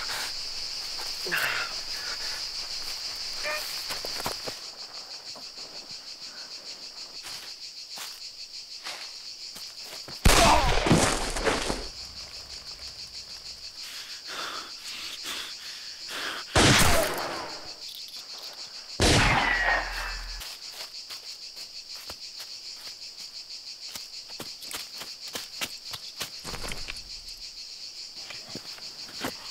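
Steady high buzzing of insects, broken by three loud gunshots, about ten, sixteen and nineteen seconds in, each ringing out with a long echoing tail.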